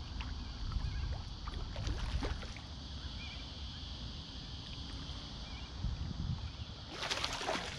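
Steady low outdoor rumble with a couple of faint bird chirps. Near the end comes a short burst of splashing as a hand reaches into the water for a hooked flathead.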